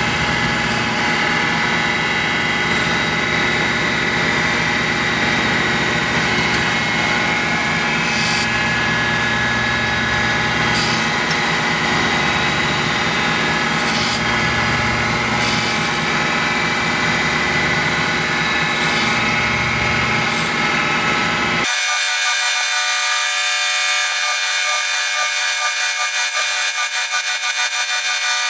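Surface grinder running, its wheel giving a steady whine, with a short hiss every few seconds as the wheel passes over the edge of a cast-iron block plane. About 21 seconds in, the sound changes abruptly to a thinner, higher one with no low end.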